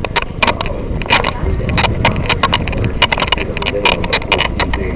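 A rapid, irregular series of sharp clicks and taps, several a second, over a low rumble.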